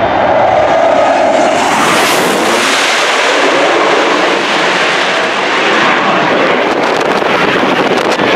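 Twin General Electric F404 jet engines of a Blue Angels F/A-18 Hornet at takeoff power as the jet passes low overhead and climbs away: loud, steady jet noise whose high hiss swells about two seconds in, with crackling near the end.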